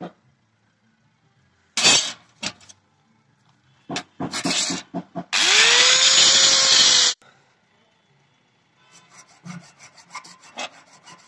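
A few short scrapes and knocks, then an angle grinder spins up and cuts through thin steel rod for about two seconds before stopping abruptly; this grinder cut is the loudest sound. Near the end, a file rasps back and forth over a wooden handle in quick, even strokes.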